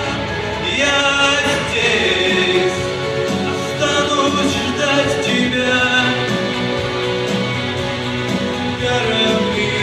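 Music: a pop song with sung vocals over instrumental backing.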